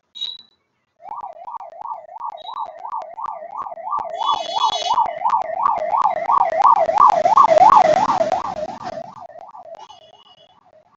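Siren sound effect for a breaking-news intro: a fast warbling siren, about three rises and falls a second, growing louder and then fading away, with a rushing noise at its peak and short high electronic beeps.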